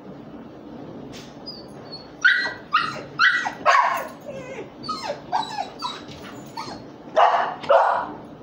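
A dog barking in a rapid run of short, sharp barks, starting about two seconds in, with two of the loudest barks near the end.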